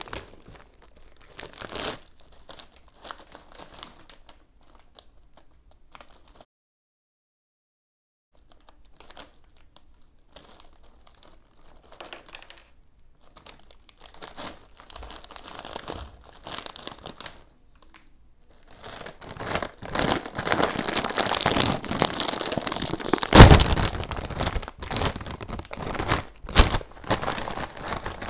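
Plastic snack-chip bags crinkling as they are handled: a Flamin' Hot Cheetos bag rustles faintly, broken by a short dead silence. About two-thirds of the way through, a Takis bag is crinkled and torn open loudly, with one sharp rip that is the loudest sound.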